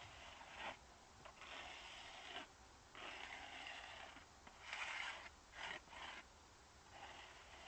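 Faint rasping strokes, about six in a row, each half a second to a second long with short gaps between them: something being scraped or rubbed back and forth over a hard, gritty surface.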